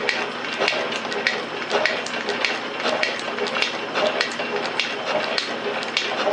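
Rhodes metal shaper cutting across the gland-nut boss of a cast steam chest, its ram stroking back and forth. A sharp clack comes with each stroke, about one and a half a second, over a steady machine rattle.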